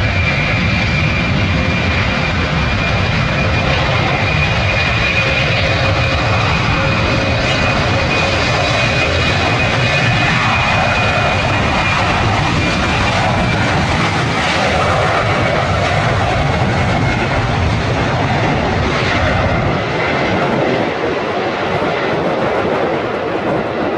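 Airliner engines running loud and steady as a plane passes close by the runway. A thin high whine sits over the noise and fades out about halfway.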